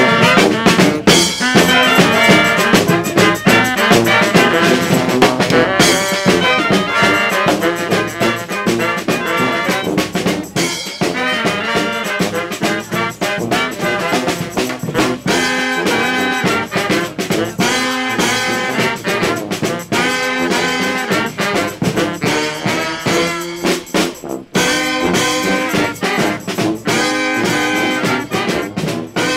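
Brass band music playing, with a short break in the sound about 24 seconds in.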